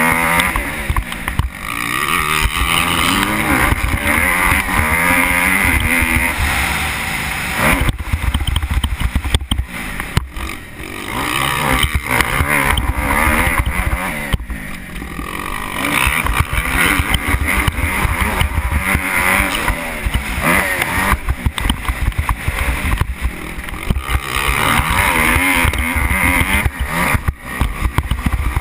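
Kawasaki KX250F single-cylinder four-stroke motocross engine revving up and falling back over and over as the rider works the throttle, with brief throttle-offs, heard under wind rumble on a helmet-mounted microphone.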